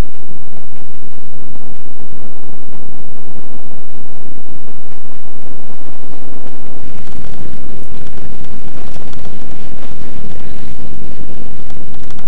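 Heavy wind buffeting a camcorder microphone held out of a moving passenger train's window, mixed with the train's running noise. The recording is overloaded and the sound is steady and loud throughout.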